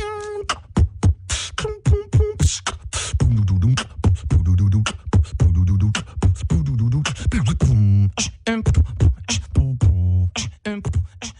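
Human beatboxing: a fast stream of mouth-made kick, snare and hi-hat clicks, with deep hummed bass notes that slide up and down in pitch several times.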